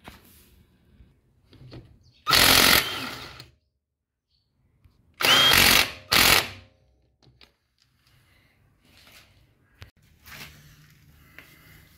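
Cartool CT03056 cordless impact wrench hammering on a car's wheel lug bolt in three loud bursts: a long one about two seconds in that winds down, then two short ones in quick succession just after five seconds.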